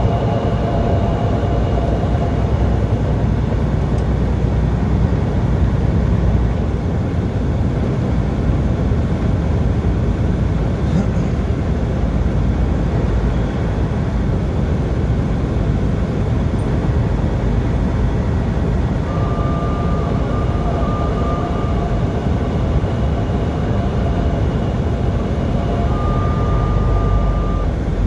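Steady engine and road noise inside a vehicle's cabin while driving at highway speed, a constant low rumble. A faint steady whine comes in about two-thirds of the way through.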